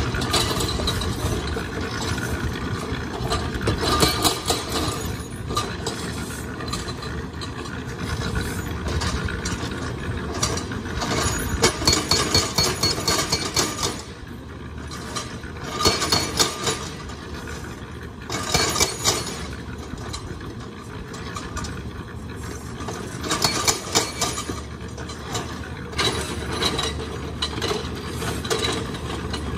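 An excavator-mounted hydraulic breaker hammering rock in several bursts of rapid metallic blows, over the steady running of construction-machine engines.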